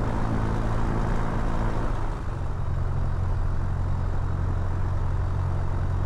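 Piper PA28-181 Archer's four-cylinder Lycoming engine running at low power. About two seconds in, its sound drops and settles into a steadier, lower hum.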